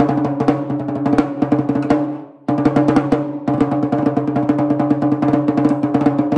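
A 13-inch single-headed concert tom with a clear head, tuned up tight ('cranked'), played with drumsticks in fast strokes and rolls, the drum ringing at a high pitch. The playing stops briefly about two and a half seconds in, then starts again.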